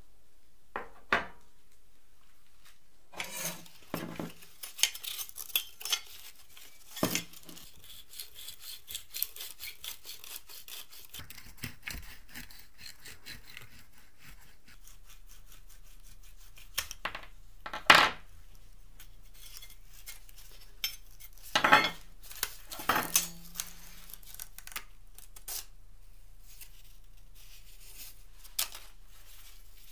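Rusty sheet-metal parts of an old filmoscope's film-strip mechanism being handled and taken apart: scattered clinks, taps and scrapes of metal, with rubbing in between. The loudest knocks fall about halfway through and a few seconds after.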